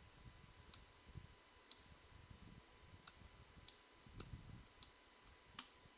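Faint computer mouse clicks, about seven single clicks at uneven intervals, over a low, quiet room rumble.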